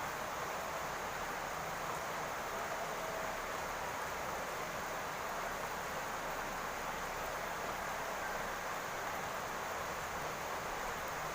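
Steady rain falling on a roof, an even hiss of many drops with no single drop standing out.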